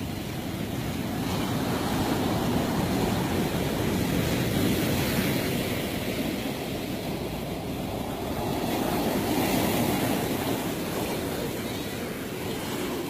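Ocean surf breaking and washing up onto a sandy beach, a steady rush that swells louder twice as waves come in.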